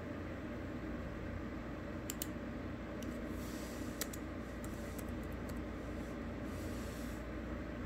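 Computer keyboard keystrokes: a handful of separate clicks between about two and five and a half seconds in, as a word is typed. A steady low background hum runs underneath.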